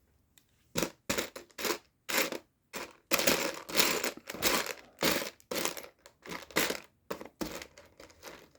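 Loose plastic Lego Technic pieces rattling and clicking in a tray as they are sorted through by hand, a run of short sharp clicks with a denser clatter around the middle.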